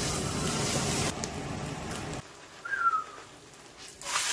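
Korean pancakes sizzling in oil in a frying pan. The sizzle cuts off about two seconds in, a short high tone that falls slightly in pitch follows, and the sizzling comes back near the end.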